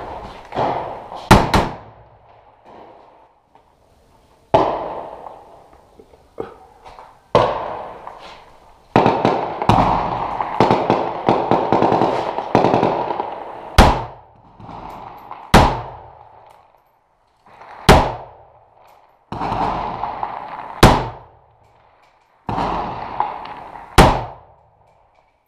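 Rifle gunfire from inside a bare concrete room, each shot sharp and loud with an echoing tail. A quick pair of shots comes about a second in, a stretch of dense crackling fire runs through the middle, and five single shots follow a few seconds apart near the end.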